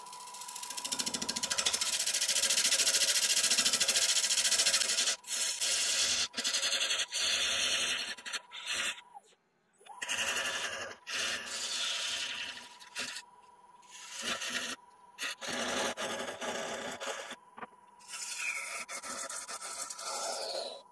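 A hand turning tool cutting a spinning sycamore blank on a wood lathe. It gives a broad hiss, loud for the first few seconds, then comes in shorter stretches with brief breaks as the tool is lifted and set back on, over a steady high whine.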